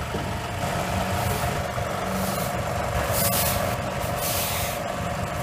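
A machine engine running steadily, with several short bursts of hissing.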